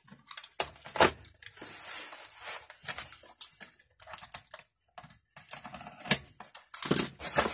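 Handling of metal spanners and their packaging: rustling with scattered clicks and light knocks.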